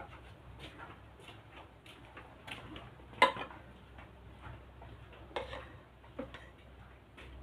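Metal spoon clinking and scraping against a bowl and plate while eating, a few sharp clinks with the loudest about three seconds in and another a couple of seconds later. Fainter ticks come at a fairly even pace in between.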